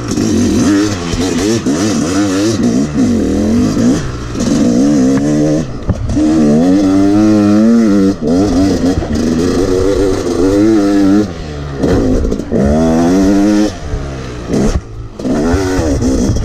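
Yamaha 250 two-stroke dirt bike engine revving hard, its pitch climbing and falling again and again as the throttle is opened and shut through the gears. It cuts off briefly several times, with some clattering from the bike.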